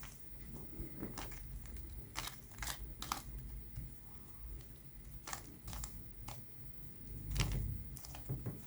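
Plastic Rubik's Cube being turned by hand: its layers click and clack at an irregular pace, with a low rumble of handling underneath.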